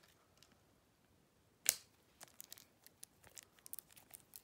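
Plastic storage-box packaging being worked open by hand, hard to get into: one loud sharp snap about 1.7 s in, then a run of small irregular clicks.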